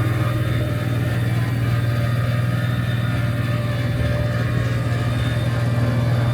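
Generator running steadily under load as a low, even hum, powering the travel trailer's electric front landing jacks while they raise the front of the trailer.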